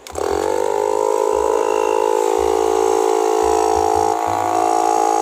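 Portable 12-volt tire inflator switching on and pumping air into a car tire: its small electric piston compressor spins up within a fraction of a second and then runs with a loud, steady buzz.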